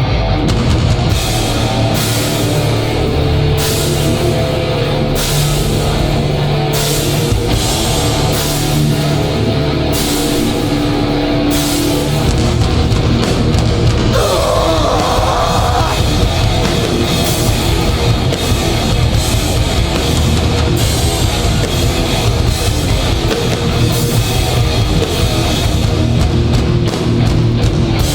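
A hardcore band playing live and loud without vocals: distorted electric guitars and bass over a drum kit with regular cymbal crashes, and a short wavering guitar figure about halfway through.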